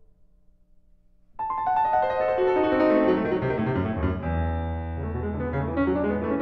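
Background piano music that starts suddenly about a second and a half in, after a near-silent pause. It plays a busy run of notes that falls in pitch, then a held low bass note under higher notes.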